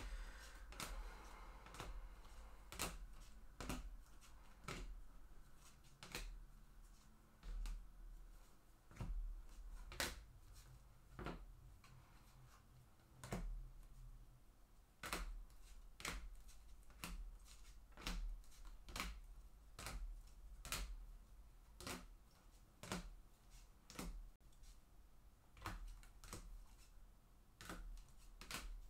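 Trading cards being handled and sorted by hand, each one set down or flicked onto the table: a long run of light, sharp taps, roughly one a second.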